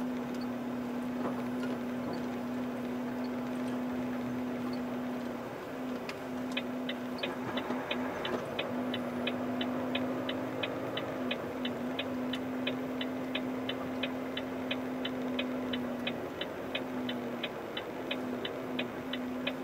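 Indicator relay in a Volvo FH truck cab ticking evenly, about three clicks a second, starting about six seconds in, over a steady low hum.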